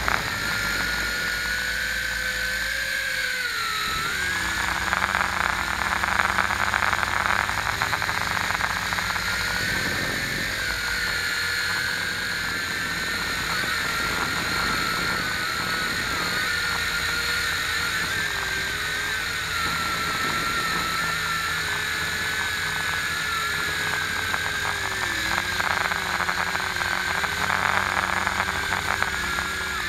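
Electric motor and propeller whine of a small radio-controlled aircraft, recorded close up by its onboard camera. The pitch dips and rises as the throttle changes, over a steady rushing noise.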